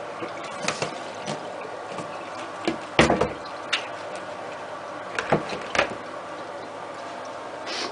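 Bowls knocking and clattering against a stainless steel sink as diced aubergine is drained: a string of short, sharp knocks, the loudest about three seconds in.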